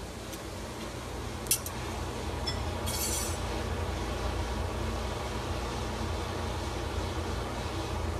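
Gas forge running with a steady low roar that grows a little louder about two seconds in. A single sharp metal clink about a second and a half in and a brief rattle around three seconds in, as of tongs and steel.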